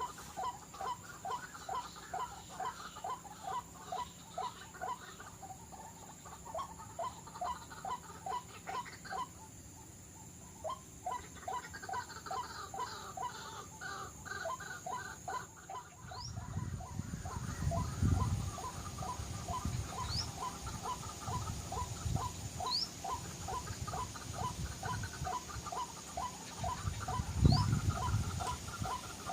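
White-breasted waterhen calls repeating steadily, about two a second, with a short break about a third of the way in. Low rumbling thumps come in the second half, the loudest near the end.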